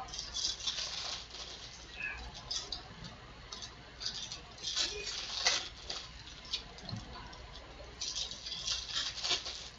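Baseball trading cards handled in a stack, cards sliding and flicking against each other in bursts of crisp rustling.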